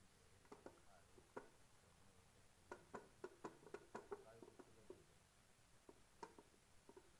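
Faint clicks and knocks of a rolling pin against a rolling board as roti dough is rolled out, a few at first, then a quick run of them in the middle, and a couple more near the end.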